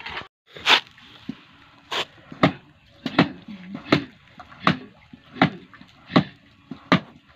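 A mason's trowel slapping cement plaster onto a brick wall: short, sharp wet slaps repeating steadily about every three-quarters of a second.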